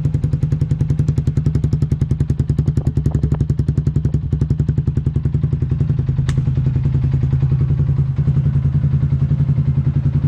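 Yamaha Sniper 150's single-cylinder four-stroke engine idling through an aftermarket UMA Racing Tru Pressure power-pipe exhaust, with a steady, even beat of exhaust pulses and no revving. There is a single sharp click about six seconds in.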